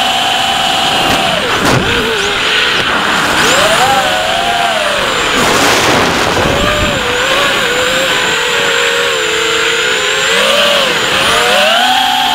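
Brushless motors of a ZMR250 racing quadcopter (Racerstar 2204 2300KV motors, 5045 props) whining in flight, recorded on board. The pitch drops and climbs several times with the throttle, falling at about two seconds, rising again at about four, sagging under a rush of air around the middle and climbing sharply near the end.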